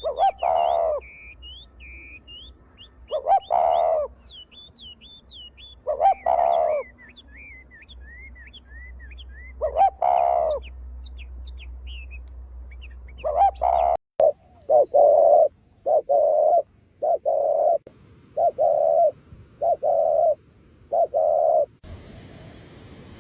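Doves cooing. Long coos come about every three seconds over the high twittering of small birds. After a sudden cut, a faster run of short coos follows, about one a second.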